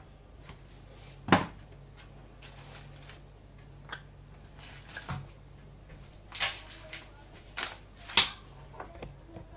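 Objects being handled and set down on a workbench: a few sharp knocks and clicks, the loudest about a second in and again near the end, with a brief rustle, over a steady low hum.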